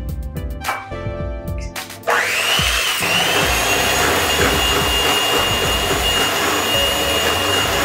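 Electric hand mixer switched on about two seconds in, its whine rising as the motor spins up, then running steadily as the beaters work eggs into creamed butter and sugar. Background music plays before it starts.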